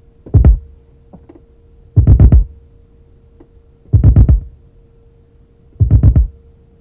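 Deep electronic drum hits auditioned from a sample library, four of them about two seconds apart, each a booming thump with a couple of quick strikes inside it, over a faint steady hum.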